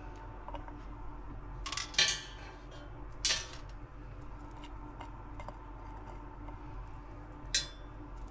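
Plates and the air fryer's basket clinking and knocking as bagel pizzas are lifted off the plates and set into the basket. There are three sharp clatters, the loudest about two seconds in, over a low steady hum.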